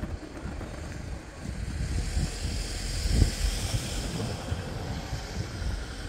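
Wind buffeting the microphone in uneven gusts, with a rushing hiss that swells in the middle and fades again.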